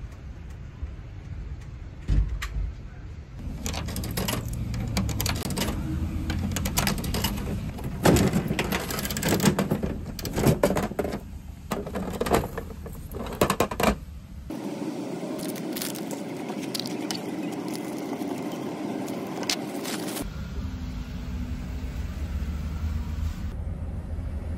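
A gachapon capsule-toy machine worked by hand: a long run of plastic clicks and rattles as the dial is turned and the capsule is taken from the chute. Steadier background noise follows.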